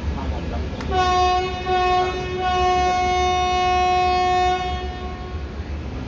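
A WAP-7 electric locomotive's horn gives a triple honk: two short blasts and then one long one, starting about a second in and stopping near the end. A steady low rumble runs under it.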